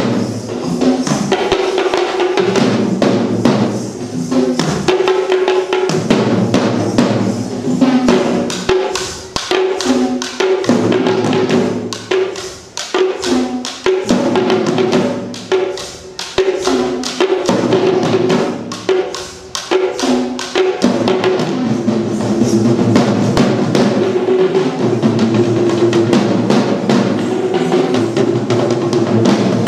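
An ensemble of Sri Lankan traditional double-headed hand drums played together in fast, interlocking rhythms. Through the middle the pattern breaks into accented phrases with short pauses, then settles into a continuous run of rapid strokes.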